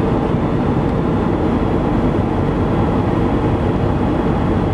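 Single-engine propeller plane's engine and propeller running steadily, a constant drone heard from inside the cockpit.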